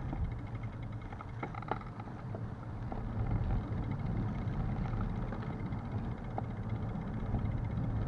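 Bicycle riding on asphalt heard from a handlebar-mounted action camera: a low, steady rumble of tyres and wind on the microphone, growing gradually louder as the bike gathers speed. There are a few light rattling clicks about a second and a half in.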